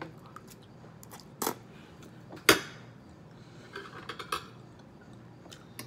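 Eating utensil clinking against a dish: two sharp clinks about a second apart, the second the loudest with a short ring, then a few lighter taps.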